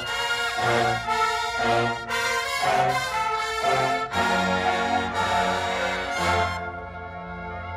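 Drum corps brass line playing live: a run of short, punched chords, then a long held chord from about four seconds in that softens near the end as the high brass falls away.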